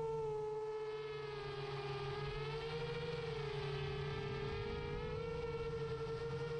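Brushless motors of a 7-inch FPV drone whining steadily in flight, the pitch sagging and rising a little as the throttle changes.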